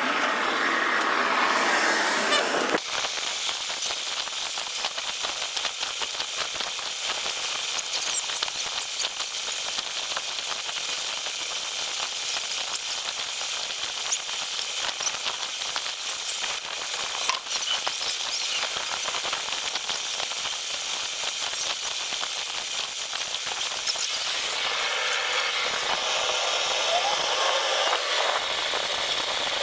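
A steady hiss with scattered faint ticks, changing in tone about three seconds in and again a few seconds before the end.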